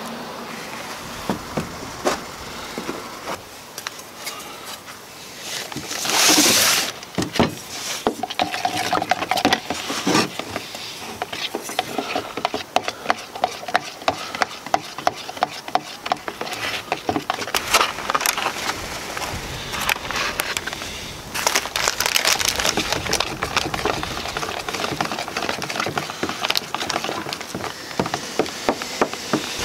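Epoxy resin being stirred with a stick in a small plastic bucket: rapid, irregular clicks and knocks as the stick strikes and scrapes the bucket's sides and bottom, thickest from the middle on. A brief rushing noise about six seconds in is the loudest sound.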